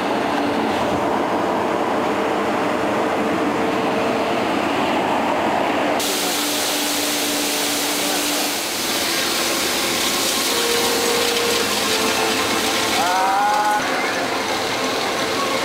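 Street sweeper machines running, their engines and rotating brooms brushing confetti off wet asphalt: a steady mechanical noise that turns brighter abruptly about six seconds in, with a short rising squeal near the end.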